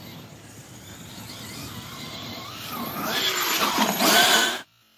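Electric Losi 5T RC truck with a Hobbywing Max5 brushless system driving close on gravel: motor whine rising and falling in pitch over tyre noise. It grows louder to a peak about four seconds in, then cuts off suddenly.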